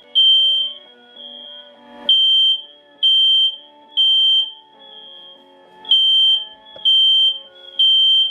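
Fire alarm sounding a high, piercing beep in groups of three with a pause between groups, the temporal-three pattern that signals evacuation. Quiet music plays underneath.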